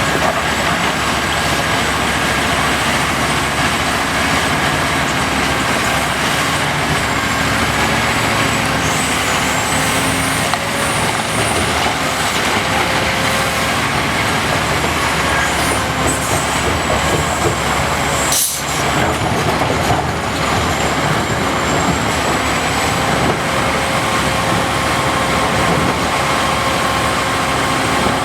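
Large diesel earthmoving machinery, a Caterpillar 5130B excavator working with CAT 777 haul trucks, running steadily under load, with a few steady whines over the engine noise. The sound drops out briefly about two-thirds of the way through.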